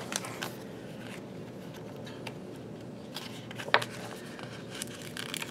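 Paper handling: light rustles and small clicks as a paper sticker is worked loose from a planner sticker-book page, with one sharper tick about three and a half seconds in, over a low steady background hum.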